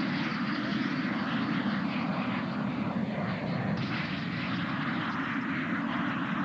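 Small jet trainer's jet engine running as the aircraft rolls along the runway, a steady rushing noise. It turns brighter and hissier from about four seconds in.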